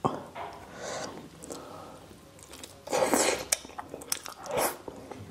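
Eating sounds: biting into and chewing a piece of soft pork asado coated in thick sauce, held in the fingers. There are several noisy bursts, the loudest about three seconds in.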